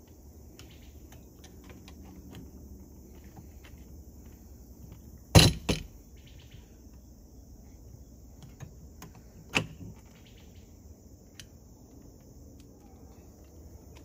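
Hands handling and seating an RV door latch's inside plate: scattered light clicks of metal and plastic parts, with one sharp clack about five seconds in and a smaller one about four seconds later.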